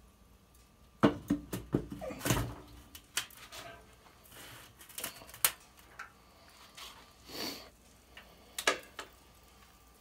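Metal clanks and knocks from handling a bullet-style charcoal smoker's body and side access door: a quick cluster of knocks about a second in, then a few single knocks spaced out.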